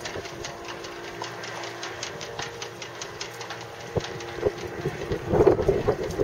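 Boat engine running steadily at low speed, a constant hum with fine, rapid, even ticking. Wind buffets the microphone about five seconds in.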